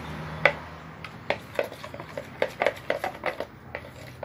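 A series of sharp, irregular taps and clicks of hard objects knocking together, about a dozen, like a utensil or bottle knocking on a bowl.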